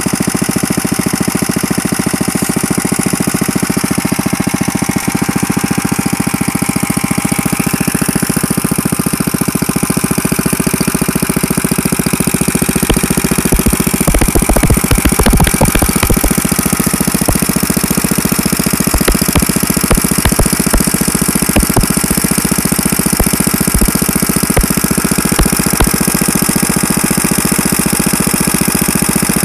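Vintage 1941 Briggs & Stratton Model A single-cylinder engine running steadily with rapid, even firing strokes. It gets a little louder about halfway through, with a few seconds of heavier, uneven low thumps. It is the original motor, back running after probably about 30 years unused.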